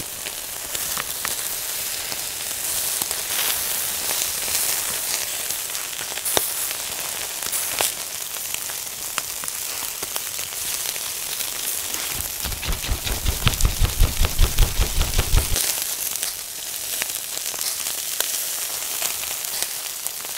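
Chicken skin sizzling on a wire grill over charcoal, with sharp crackles and pops here and there as the fat spits. A little past the middle, a few seconds of low, rapid thumping, about four a second, is the loudest thing.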